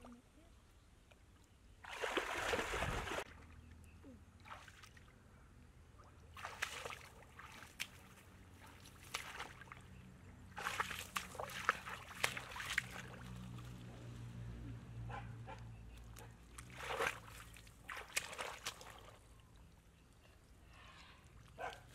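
Shallow muddy water splashing and sloshing in short irregular bursts as a person wades and gropes through it by hand with a bamboo fish basket; the loudest splash comes about two seconds in.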